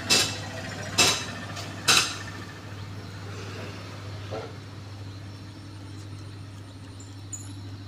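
Hammer blows, three sharp strikes about a second apart in the first two seconds, then they stop. A steady low hum runs underneath.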